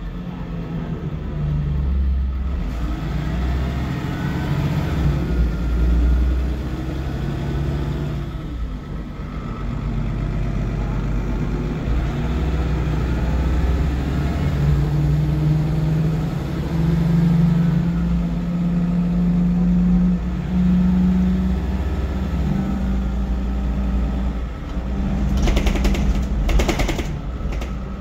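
MAN 18.240 single-deck bus's six-cylinder diesel engine running under way, heard from inside the passenger saloon, its pitch rising and then stepping down as it works through the gears. Near the end a fast rattling comes in over the engine.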